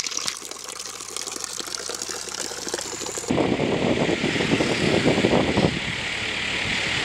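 Water splashing and trickling from a bamboo pipe spout. Cut off suddenly about three seconds in by a louder, choppy rumble of a moving vehicle.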